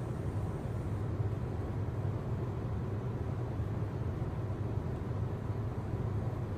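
A steady low hum with an even hiss underneath, holding constant with no distinct events.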